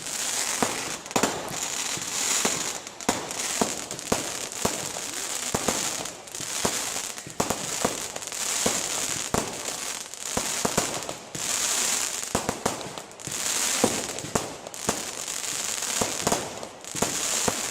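Aerial fireworks display: a dense string of sharp cracks and pops, with recurring spells of high hiss lasting a second or two.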